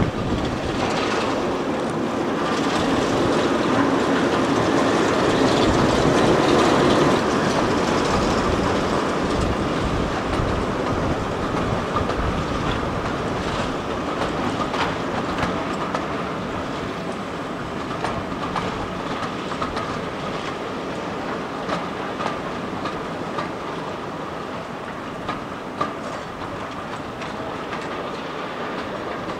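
A pair of Class 09 diesel shunters, English Electric six-cylinder engines running, haul a train of coaches past, loudest about six seconds in and then fading as it draws away. Wheels click over rail joints and pointwork, with a thin wheel squeal in the second half.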